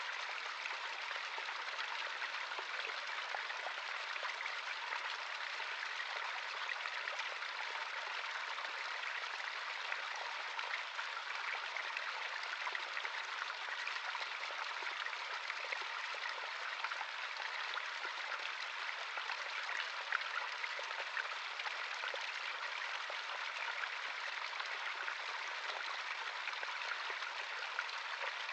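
Running water of a small stream, flowing and babbling steadily.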